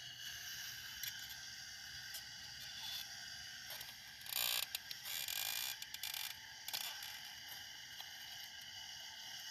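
Radio-controlled hydraulic excavator working: a steady high-pitched mechanical whine from its pump and servos, with clicks, and a louder, noisier stretch from about four to six and a half seconds in as the bucket digs into the soil.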